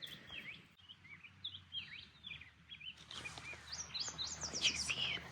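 Small birds chirping and singing in quick, short rising and falling notes, growing busier and louder about three seconds in.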